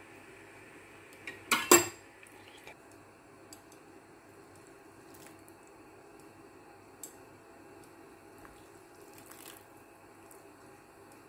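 A utensil knocking against a cooking pot of soup: a sharp double clatter about two seconds in, the loudest sound, then a few light clinks as vegetables are lifted out of the broth.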